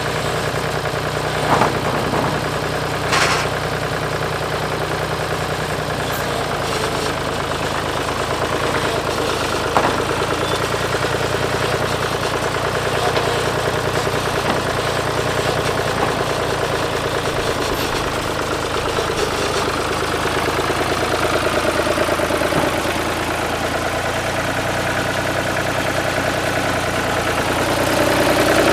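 Gas engine of a Woodland Mills HM126 portable band sawmill running steadily, with a few sharp knocks in the first ten seconds and a mid-pitched tone rising near the end.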